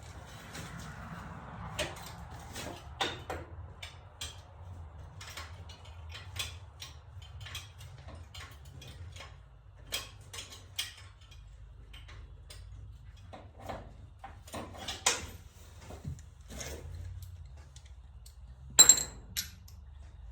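Hand tools working at a spark plug in a V6 engine bay: scattered metal clicks, taps and knocks of a socket and extension against the engine. The loudest is a sharp, ringing double clink near the end. A steady low hum runs underneath.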